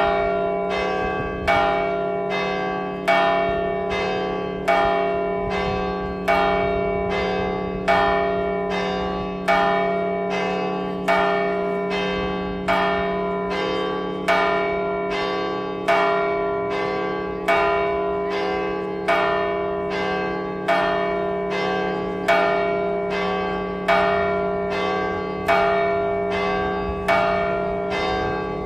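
Church bell struck over and over at an even pace, about one stroke every 0.8 seconds with every other stroke louder, its low hum ringing on between strokes. This is the second call to mass.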